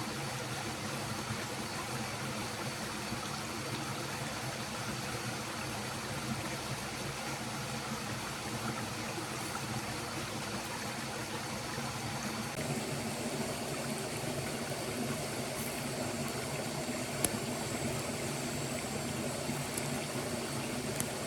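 Flowing stream: a steady rush of water that grows a little brighter about halfway through, with a few faint sharp ticks near the end.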